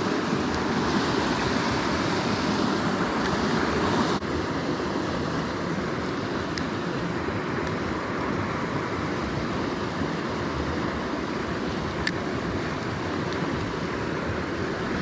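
River water rushing steadily over rocks, with wind on the microphone. About four seconds in the sound changes abruptly, as at an edit.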